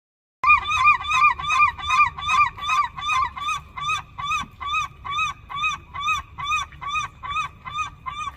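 Geese honking in a fast, steady series of about three calls a second, starting half a second in. For the first few seconds two birds' honks overlap, then one bird keeps honking alone.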